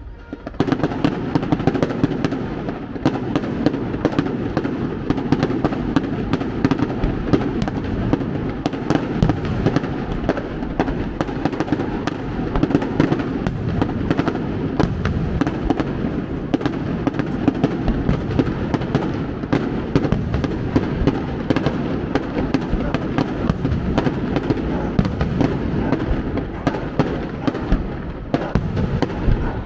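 Aerial fireworks display: a rapid, continuous barrage of bangs and crackles from bursting shells, starting abruptly about half a second in and keeping up without a break.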